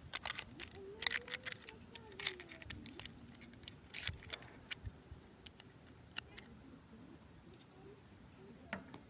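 Irregular small clicks and crinkles of plastic packaging and miniature toy pieces being handled during unboxing, busiest in the first half.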